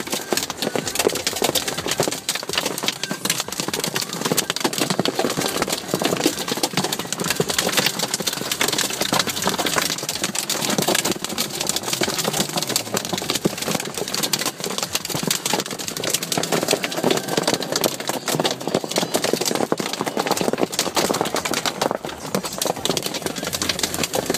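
Hailstones pelting down in a hailstorm: a dense, continuous clatter of many small impacts, steady throughout.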